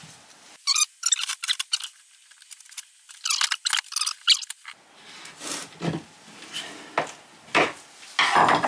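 Cured mould rubber being pried and peeled away from the sides of its wooden casting frame: a run of sharp crackles and squeaks, then handling rustles and knocks over the last few seconds.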